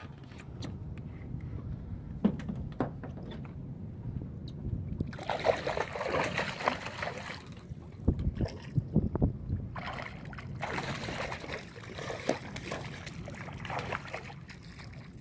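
Water sloshing and splashing in uneven spells, with scattered knocks.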